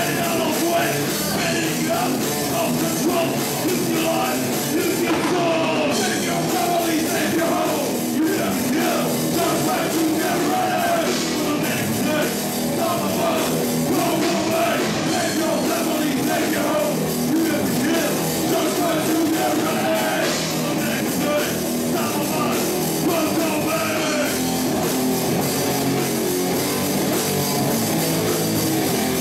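Live rock band playing, steady and loud: electric guitars and drum kit, with a singer's voice on top.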